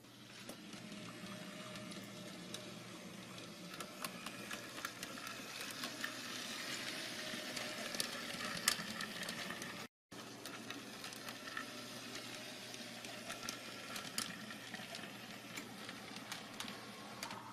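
HO-scale model tram running along its track: the small electric motor whirs while the wheels click over the rail joints. It grows a little louder toward the middle and breaks off for a moment about ten seconds in.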